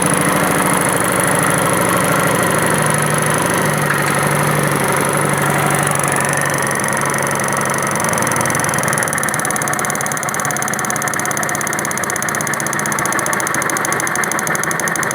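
Kawasaki Vulcan 900 V-twin idling with a rapid, steady 'tac tac tac' knock. The knock comes from a loose nut on the front belt-drive pulley, not from the cam chain tensioner that was first suspected.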